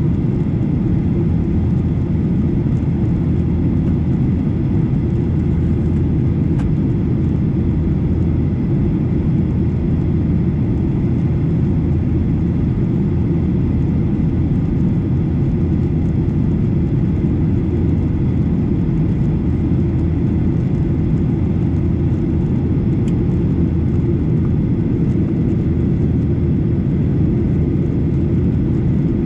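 Steady low rumble of a Boeing 737 airliner's jet engines and airflow, unchanging throughout.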